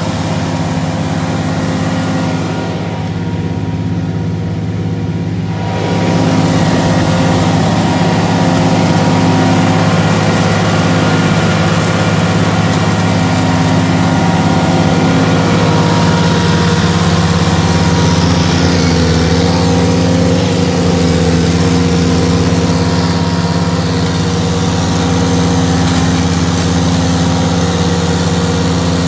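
Ditch Witch SK600 mini skid steer running steadily while its hydraulic flail mower attachment cuts through brush. The machine gets louder about six seconds in and stays so.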